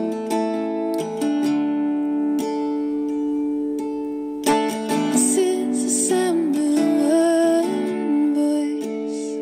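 A plucked acoustic string instrument plays sustained chords. About halfway through, a short wordless vocal line wavers in pitch over them.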